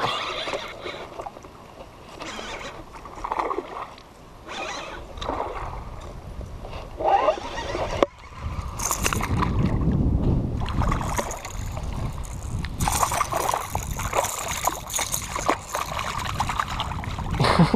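Wind buffeting the microphone, with rustles and knocks of hands handling a baitcasting rod and reel. A sharp click comes about halfway through, after which the wind rumble is louder and steady.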